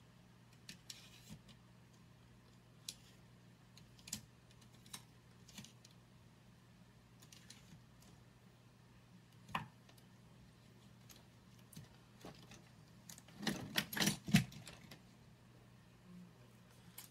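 Small objects clicking and rattling as someone rummages through makeup items, in scattered light clicks with a louder flurry of clatter near the end.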